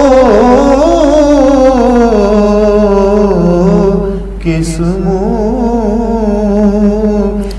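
A man's solo voice chanting an unaccompanied naat in slow, drawn-out notes. The notes waver and slide downward, with a short break about halfway through before the next held note.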